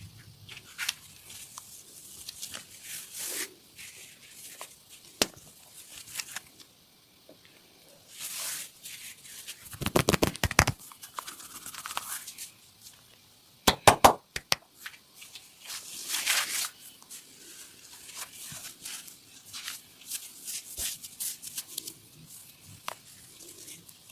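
Hands working over skin and clothing during an upper-body massage, with soft rubbing swishes and small clicks. Twice near the middle comes a quick run of sharp slaps or pops, the louder one about half a dozen strikes in well under a second.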